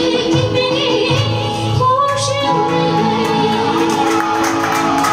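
A woman singing into a microphone over backing music, holding long, wavering notes.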